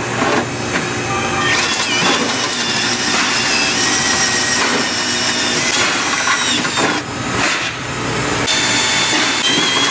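Cordless drill running a step bit through a steel truck fender to enlarge the mounting holes. The motor whirs and the bit squeals against the sheet metal, the squeal shifting in pitch as it cuts, with a few brief pauses between runs.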